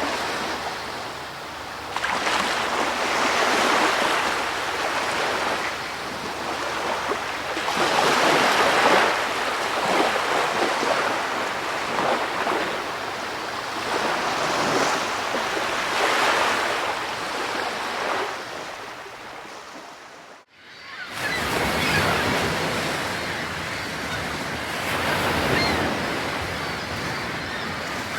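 Ocean surf: waves washing in and drawing back, swelling every few seconds. The sound fades out briefly about two-thirds of the way through, then comes back.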